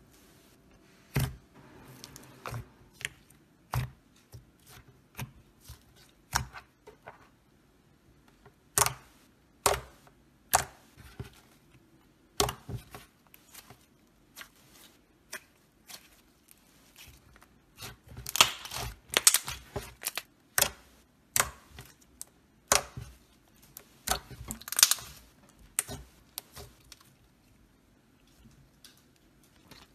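Metallic silver slime being poked, stretched and squished by hand, giving sharp sticky clicks and crackling pops. These come in scattered single snaps, with denser crackly clusters about two-thirds of the way through.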